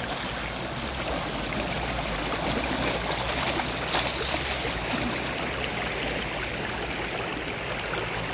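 Steady rushing of river water, with splashing from people swimming and wading in it.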